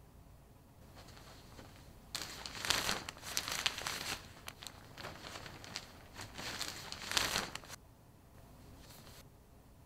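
Paper crinkling and rustling, a dense crackly noise that swells in uneven waves for several seconds, starting about two seconds in and stopping sharply near the eighth second, with fainter rustling just before and after.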